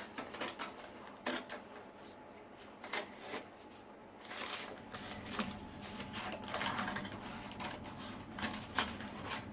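Scissors cutting butter paper (baking parchment): a run of irregular crisp snips with paper rustling between them.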